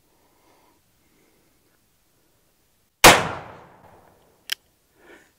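Single shot from a Pietta Colt-pattern .44 black powder revolver with an 8-inch barrel, loaded with 35 grains of Pyrodex P. A loud sharp bang about three seconds in dies away over about a second, and a short sharp click follows about a second and a half later.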